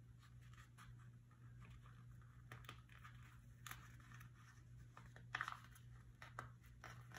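Faint rustling and crinkling of glossy sticker-book pages being handled and a sticker being peeled off its backing sheet, with a louder crinkle about five seconds in.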